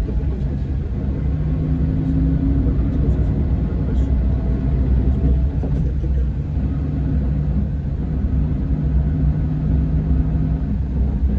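Scania K410 bus's six-cylinder diesel engine running with a steady low rumble, its pitch shifting slightly now and then.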